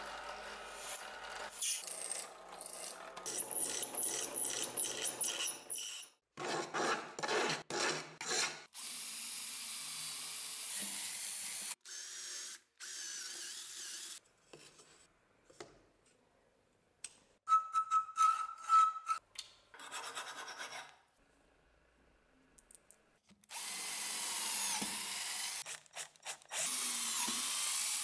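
Electric drilling through the steel tang of a cleaver and its wooden handle scales, heard as a series of short, cut-together bursts that start and stop abruptly. A cluster of sharp knocks comes about two-thirds of the way through.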